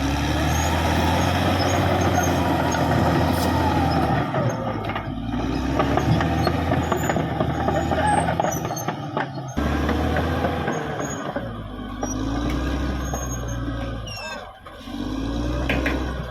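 Caterpillar D6R XL bulldozer working, its diesel engine running loud under load with the pitch rising and falling again and again, mixed with knocks and clanks.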